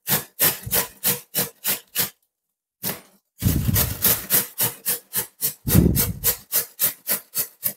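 White cabbage being grated on a metal hand grater: quick, even scraping strokes, about four a second, pausing briefly about two seconds in before the grating resumes.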